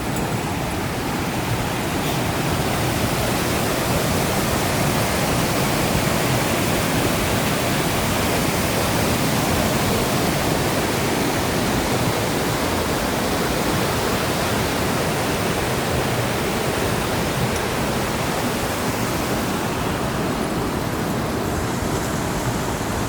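Steady rush of fast-flowing water, a creek or waterfall, an even hiss covering low to high pitches without a break.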